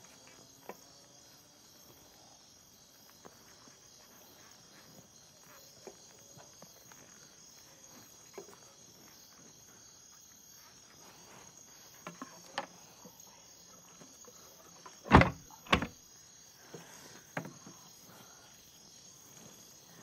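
Night-time insect chorus of crickets, a faint steady high chirring, with scattered light clicks and crackles. Two louder short noises come close together about three-quarters of the way through, and another soon after.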